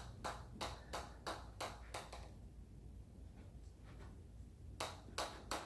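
Mallet strikes tapping in an even rhythm, about three a second, that stop for about two and a half seconds midway and then pick up again near the end: a stall in the hammering rhythm.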